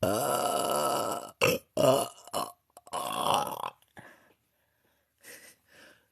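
A woman belching: one long burp lasting over a second, a few short bursts, then a second burp about three seconds in.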